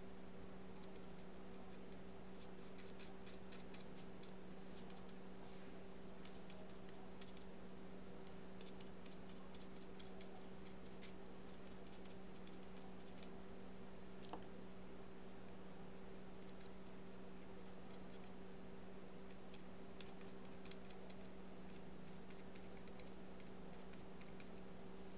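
Paintbrush stroking and dabbing gouache onto paper: quick, soft scratchy strokes coming in irregular clusters, over a steady low hum.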